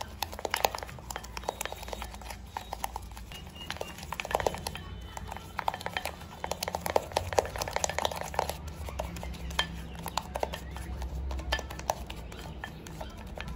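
A brush stirring and scraping blonder (bleach) powder and 40-volume developer into a thick paste in a glass bowl. It makes a run of quick, irregular scrapes and taps against the glass.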